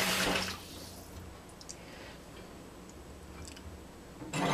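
Kitchen sink tap running, then turned off about half a second in; after that only a few faint small clicks and a brief burst of noise near the end.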